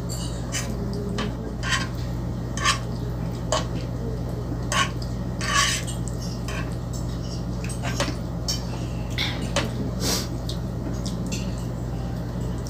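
Metal fork clinking and scraping against a non-stick frying pan as spaghetti is twirled and scooped, in scattered short taps, over a steady low hum.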